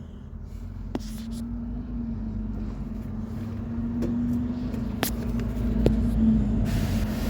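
A car engine running steadily with a low rumble, and a few sharp clicks over it. A louder rushing noise builds near the end.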